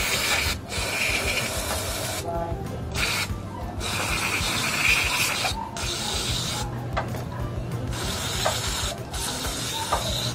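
Aerosol carburetor cleaner sprayed in a series of hissing bursts with short breaks between them, cleaning out a scooter's throttle body. Background music plays underneath.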